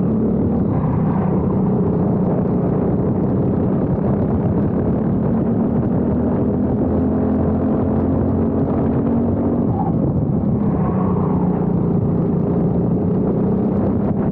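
Briggs & Stratton four-stroke racing kart engine running hard under load, its note climbing for a few seconds, dropping sharply about ten seconds in as the throttle comes off, then climbing again.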